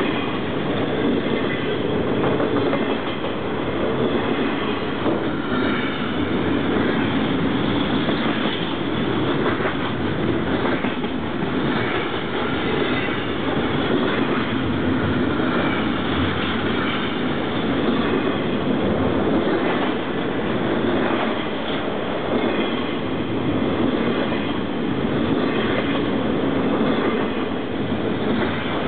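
Double-stack container freight train passing at close range: a steady rumble and clatter of its wheels on the rails that does not let up.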